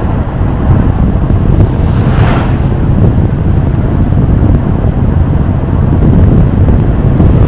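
Heavy wind rumble on the microphone of a camera moving along a road, mixed with road and vehicle noise, with a brief rushing swell about two seconds in.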